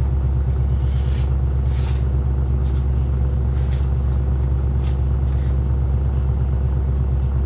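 Wood chipper's engine running steadily at a constant speed, with short hissing bursts every second or so.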